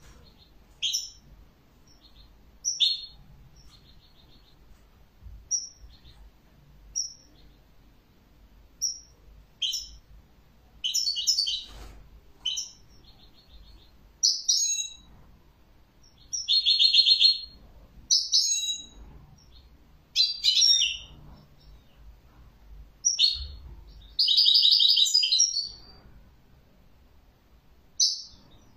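European goldfinch singing: short high chirps a second or two apart, running into longer twittering song phrases in the second half, the longest near the end.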